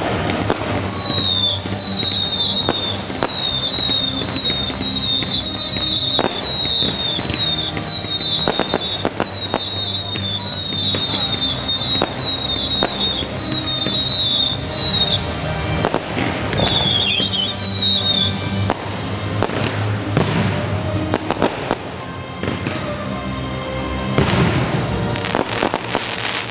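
Fireworks display: a rapid run of high whistles, each falling in pitch, for about the first fifteen seconds and again briefly a little later, among sharp bangs and crackles, over loud epic-style music played for the show.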